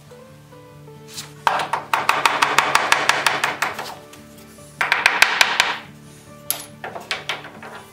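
Hand work with a claw hammer and C-clamps on a wooden block: two stretches of fast clicking and clattering, then a few separate light taps near the end.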